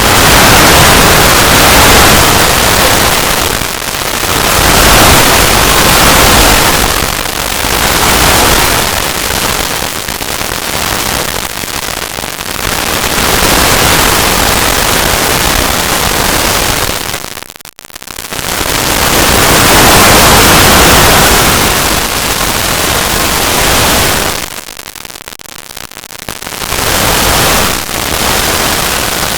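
Very loud, heavily distorted static-like noise that swells and fades every second or two. It drops out for a moment a little past halfway and goes quieter for about two seconds near the end.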